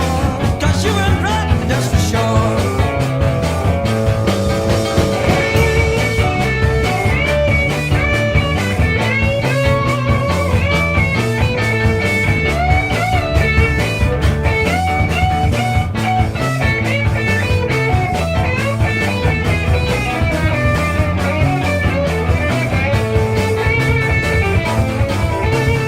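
Blues-rock band playing an instrumental passage: an electric lead guitar plays long, bending held notes over bass and drums, with no singing.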